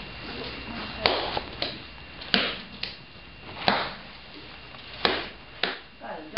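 Wooden kine mallet pounding mochi rice dough in a stone usu mortar, one heavy thud about every 1.3 seconds, with lighter slaps in between.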